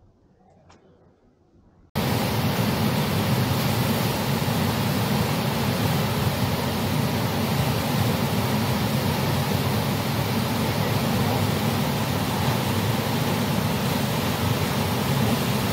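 Rushing whitewater of a standing river surf wave: a loud, steady noise of churning water that starts abruptly about two seconds in, after near quiet.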